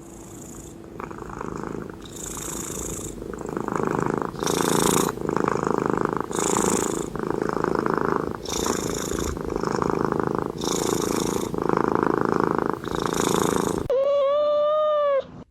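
A domestic cat purring loudly, close to the microphone, in a steady rhythm that swells and fades about once a second with each breath. Near the end a short, held, high-pitched cry comes in.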